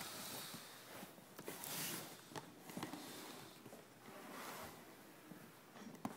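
Faint rustling and handling noise in a small room, rising and falling in soft swells, with a few light clicks.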